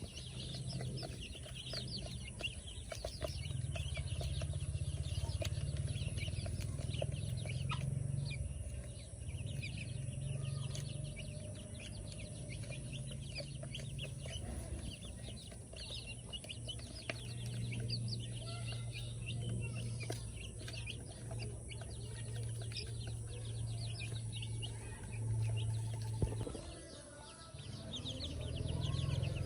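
Many chicks peeping, a dense run of short high chirps, over a low steady hum that cuts out briefly near the end.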